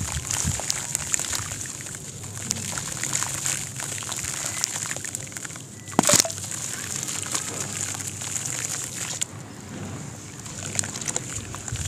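Wet, crumbly sand-and-cement blocks being crushed by hand into a basin of water: grit pattering and splashing into the water with water sloshing, and one sharp louder splash about six seconds in. Near the end the hands stir the water, sloshing it around the basin.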